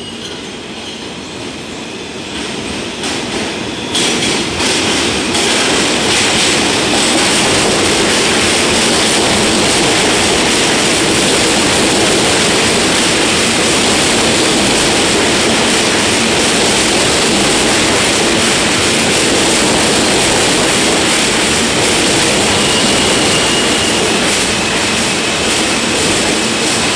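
R160A subway train pulling into a station, growing louder over the first few seconds, with a few sharp clicks of wheels over rail joints as the cars reach the platform. The wheels then rumble steadily past, and a thin high squeal comes briefly near the end as the train slows to a stop.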